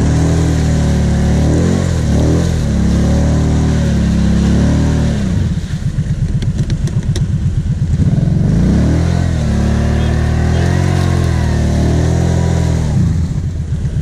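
Kawasaki KVF 750 Brute Force quad's V-twin engine revved hard in repeated rising and falling bursts as the quad struggles nose-down in deep mud. It drops to a lower, pulsing run for a couple of seconds in the middle, with a few sharp clicks.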